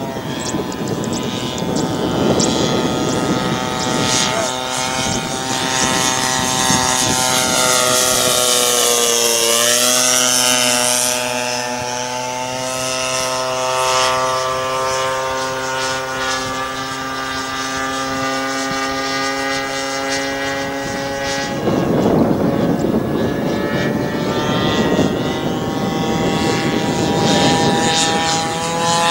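A radio-controlled plane's 40cc DLE twin-cylinder two-stroke gas engine drones steadily in flight. Its note dips and climbs back about ten seconds in, then holds level. A rushing noise swells over it twice near the end.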